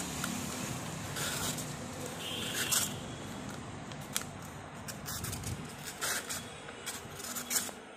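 A handmade Indian folding knife's blade slicing through rough copy paper in a series of short, rasping cuts. The paper parts cleanly, a sign of a very sharp edge.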